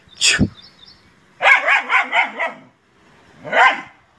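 Dog barking: a quick run of short yipping barks about a second and a half in, and a single bark near the end, after a sharp knock at the start.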